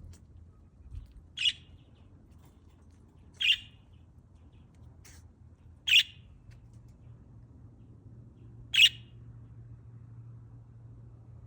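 Pet lovebirds giving four short, shrill chirps a couple of seconds apart, with a few fainter calls between.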